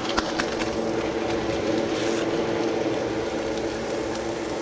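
Steady hum of a room air conditioner, with a few light clicks early on.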